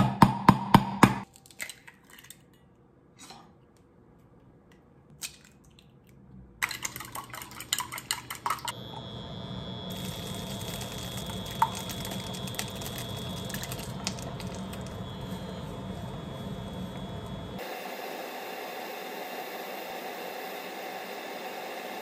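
Chopsticks beating egg in a stainless steel bowl, two quick runs of rapid clicks, then butter and egg sizzling steadily in a frying pan from about nine seconds in.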